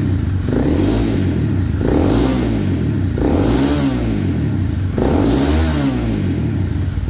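Honda CBR250R's 250cc single-cylinder engine, breathing through a Kawasaki Ninja slip-on silencer, revved hard again and again while standing. Each throttle blip rises steeply in pitch and falls back, taking the engine up to high revs without hitting the limiter.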